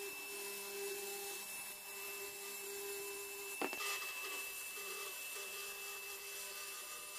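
DeWalt plunge track saw running steadily on its guide rail as it trims the edge of a glued pallet-wood panel, heard as a faint even hum. A single sharp click comes about three and a half seconds in.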